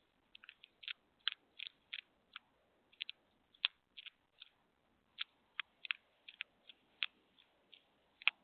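Hedgehog chewing its food: a run of short, sharp, irregular clicks, about two or three a second.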